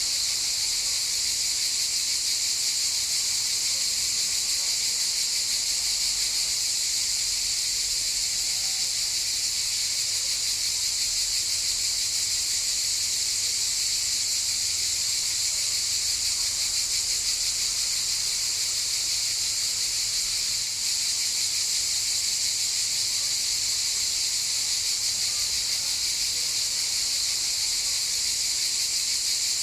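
Chorus of cicadas buzzing in a steady, dense, high-pitched drone that holds without a break, with a brief slight dip about two-thirds of the way through.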